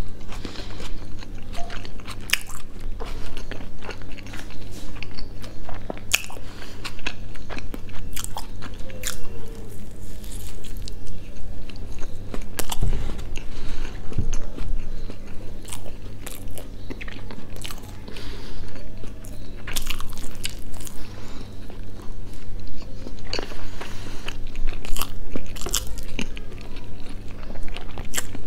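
Close-miked mouth sounds of a person biting into and chewing a chicken burger in a soft bun, with many irregular short clicks of chewing.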